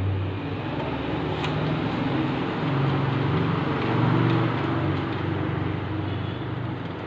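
A motor vehicle's engine passing by, its low hum swelling to its loudest about four seconds in and then fading.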